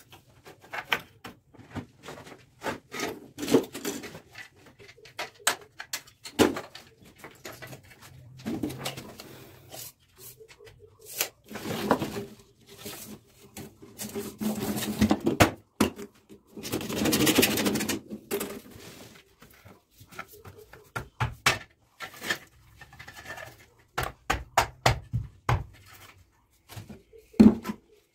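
Irregular taps, clicks and knocks of hand work fitting PVC electrical conduit and its clamps to a brick wall, with a few longer scraping, rustling stretches of handling.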